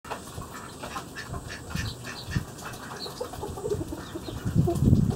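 Farmyard birds calling in the background, a run of short repeated calls. A louder low rumble comes in near the end.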